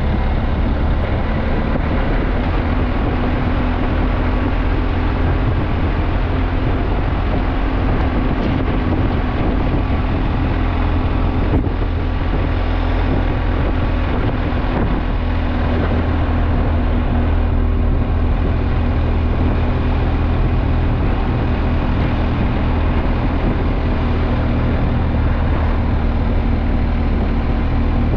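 BMW R1250GS boxer-twin engine running steadily under way, with wind rushing over the microphone.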